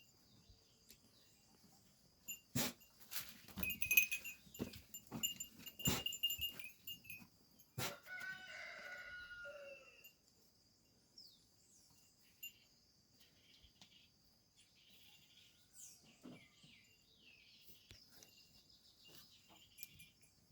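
A rooster crows once, for about two seconds, about eight seconds in, over a steady high chirring of crickets. Scattered knocks and clicks come in the first several seconds.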